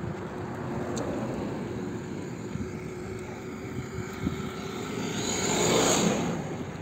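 Engine hum from road traffic, with a motor vehicle passing close: its tyre and engine noise swells near the end and then fades.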